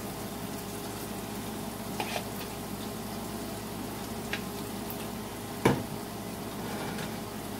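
Sliced beef and onions sizzling steadily in a skillet on a turned-down burner. There are a few light clicks of a utensil, and a sharper knock a little past halfway as the emptied bowl is set down on the stovetop.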